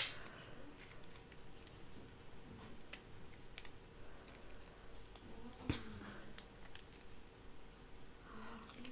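Faint, scattered clicks and small cracks of Dungeness crab shell being picked apart by fingers and nails, with one louder crack a little before six seconds in.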